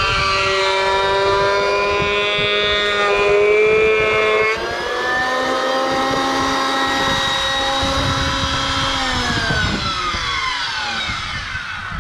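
Benchtop surface (thickness) planer's electric motor and cutterhead running with a loud, high whine. The pitch steps down about four and a half seconds in, then falls steadily near the end as the machine winds down.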